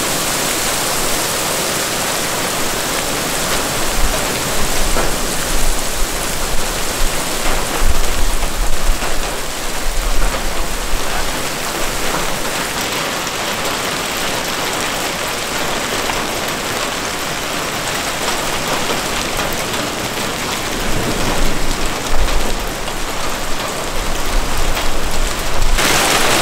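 Hail mixed with heavy rain pelting the pavement and cars, up to golf-ball size: a dense, steady hiss. Sharper, clattering hits come in flurries between about 4 and 11 seconds in and again near the end.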